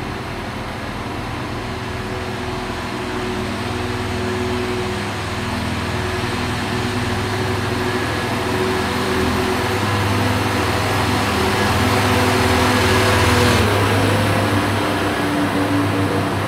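Class 172 Turbostar diesel multiple unit pulling away under power, its diesel engines running and growing steadily louder as it accelerates. About thirteen seconds in, the engine note dips and the higher noise falls away.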